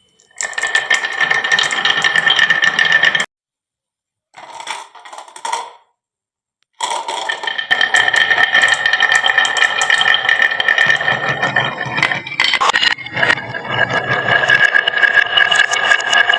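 Many marbles rolling and clattering down a wooden marble run: a dense, fast rattle of clicks with a ringing tone over it. It stops abruptly about three seconds in, returns briefly, then starts again about seven seconds in and keeps on.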